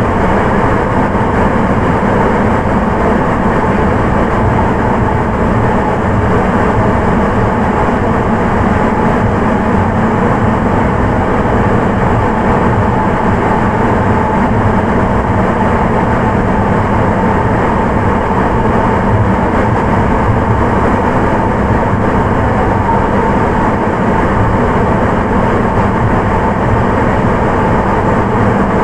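Onboard running noise of a Sapporo Municipal Subway 9000 series rubber-tyred train with Hitachi IGBT inverter drive, running steadily through the tunnel at an even speed. It is a loud, unchanging rumble with a faint steady whine on top.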